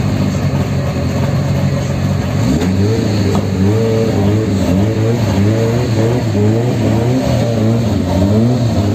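Drag race car engines at the start line: a steady engine note, then about two and a half seconds in the engine is revved up and down over and over.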